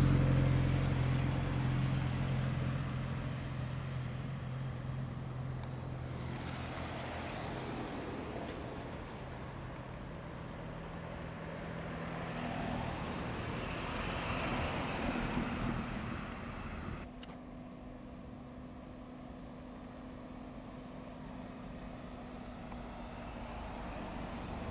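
Modern MINI cars driving slowly past one after another, engines running at low speed with tyre noise on tarmac. A steady engine hum is loudest at the start and fades, another car swells past in the middle, the sound cuts off abruptly about two-thirds through, and the next car approaches near the end.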